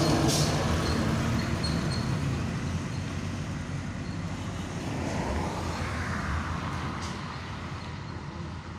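A tanker truck passes close by. Its engine and tyres are loudest at first and fade as it drives off along the road. Road noise swells again a little about halfway through.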